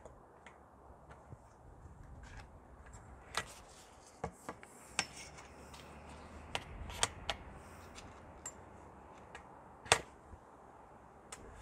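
Aluminium awning legs and their rail fittings clicking and knocking as they are handled, adjusted and snapped into place. Scattered sharp clicks, the loudest about ten seconds in, over a low steady rumble.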